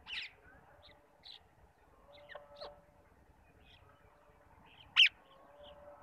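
Rose-ringed parakeets giving short, shrill calls: a sharp call at the start, softer scattered chirps, and a louder, very brief call about five seconds in.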